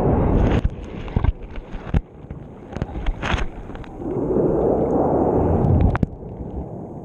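Waves washing over a GoPro on the sea bed: two surges of rushing water a few seconds apart, with sharp knocks and clicks between them as the camera housing drags and knocks along the bottom.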